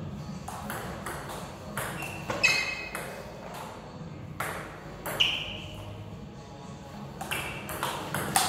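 Table tennis ball knocking between rackets and table during a rally: a string of sharp, irregularly spaced clicks and pings.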